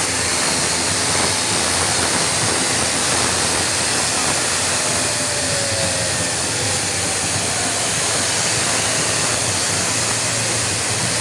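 Twin turboprop engines of an Airbus C-295 military transport running as the aircraft taxis close by: a steady, loud rushing noise with a low hum underneath.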